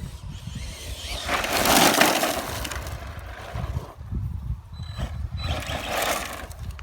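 Arrma Senton RC short-course truck running on 3S over rough, stony ground: two surges of crunching, gritty tyre and chassis noise, the louder about two seconds in and the second near the end. Strong wind buffets the microphone underneath.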